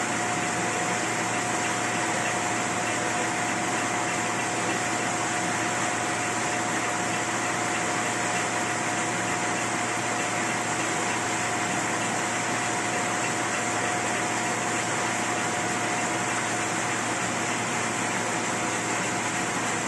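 Roller-bed sludge dewatering machine running: a steady mechanical hum with a constant mid-pitched whine as it presses sludge into cake.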